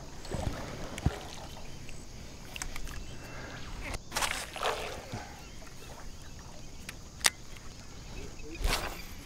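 Water splashing in short bursts around a stand-up paddleboard and its paddle, with a few sharp single knocks.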